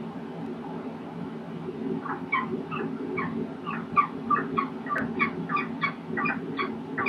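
Peregrine falcon calling: a run of short repeated notes starting about two seconds in, coming faster towards the end, over a steady low hum.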